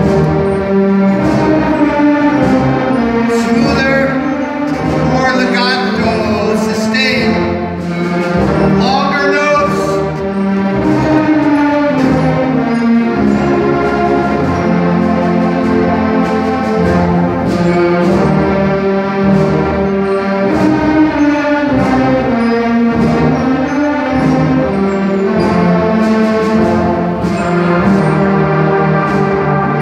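A massed concert band of school musicians playing: brass and woodwinds holding and changing sustained chords, with frequent percussion hits.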